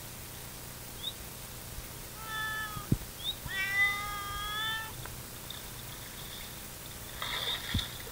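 An animal crying out: two drawn-out, meow-like calls, one at about two seconds and a longer one a second later, then a rougher call near the end, with a couple of dull thumps.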